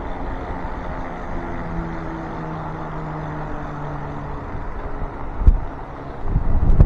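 Electric bike motor humming steadily under pedal assist, with tyre and road noise. Wind buffets the microphone in gusts near the end.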